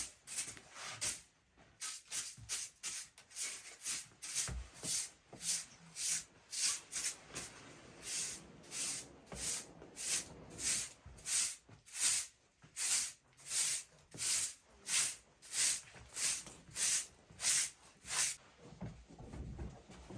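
Rhythmic swishing strokes, about two a second, as of something being worked back and forth by hand; they stop near the end.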